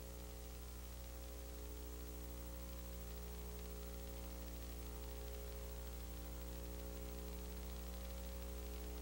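Steady electrical mains hum with a row of overtones over a faint even hiss, with no other sound.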